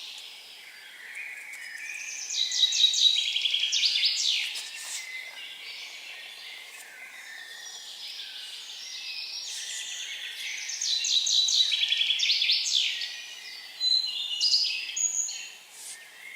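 A forest songbird singing: two phrases of rapid repeated notes stepping down in pitch, about eight seconds apart, then a shorter phrase near the end, over a faint steady high hiss of other birds or insects.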